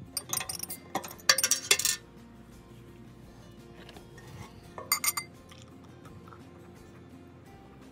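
Glass and a glass beer bottle clinking and knocking on a wooden table: a cluster of sharp clinks in the first two seconds and another short one about five seconds in, with soft acoustic guitar music underneath.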